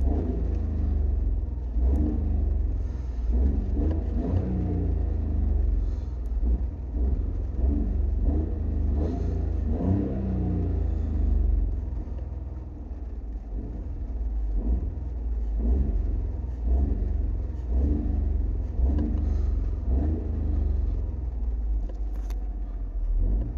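Car engine revved again and again by blips of the accelerator pedal, each rev rising and falling back within a second or two over a heavy low rumble, heard from the driver's footwell.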